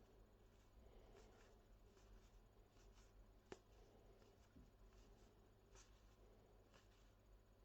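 Near silence, with faint rustling and light ticks from trading cards being handled and one sharper tap about three and a half seconds in.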